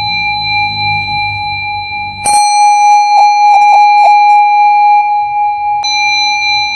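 Music: a steady, sustained ringing tone made of several fixed pitches. About two seconds in a sharp attack comes in, followed by a few pulsing beats.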